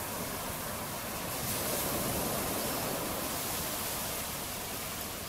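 Surf washing and water churning in the shallows, a steady rushing that swells a little about two seconds in.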